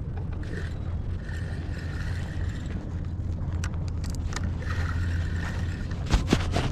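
Steady low motor drone, with a few sharp clicks and knocks near the end.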